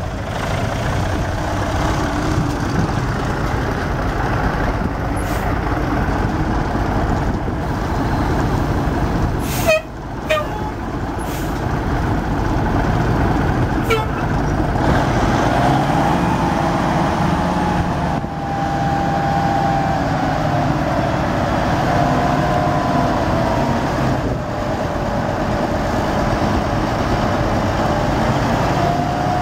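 1977 Ford L8000 dump truck's six-cylinder turbo diesel running steadily, with a few sharp clicks about a third of the way in. From about halfway a wavering whine rises over the engine as the hydraulic hoist lifts the dump bed.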